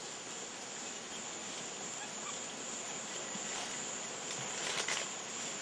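Steady high-pitched insect drone over a hiss of forest ambience, with a few faint rustles or clicks about four to five seconds in.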